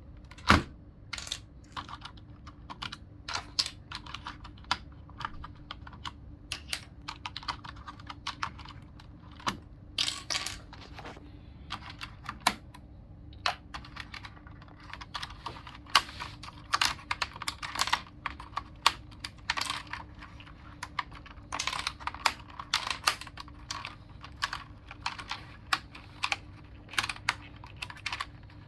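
Logitech G710+ mechanical keyboard clacking as its keys and keycaps are worked by hand: irregular plastic clicks at an uneven pace, with one sharper knock about half a second in.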